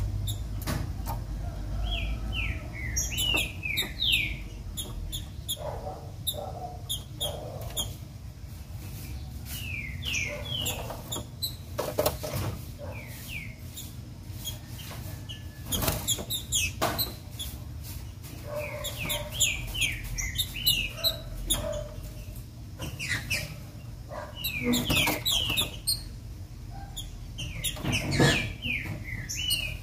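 Female trinca-ferro (green-winged saltator) singing: clusters of short, sliding whistled notes that come every few seconds, over a low steady rumble. Several sharp knocks are heard between the song clusters.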